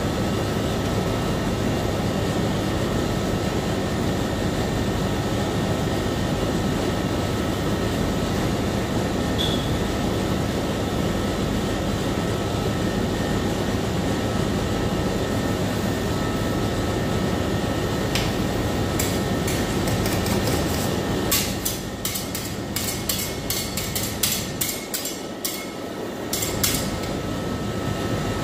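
Steady hum of a rolled-ice-cream cold-plate machine's refrigeration. From about two-thirds through come a quick run of sharp metal clicks and taps, steel scrapers knocking on the stainless plate, while the hum dips for a few seconds.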